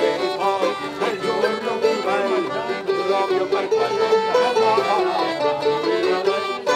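Piano accordion playing a lively folk tune, with a man's voice singing along.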